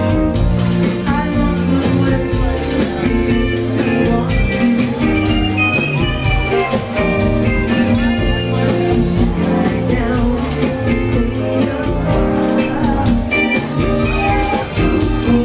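Live Latin rock band playing: electric guitars, congas and drum kit together, with rapid hand-drum strokes running through the music.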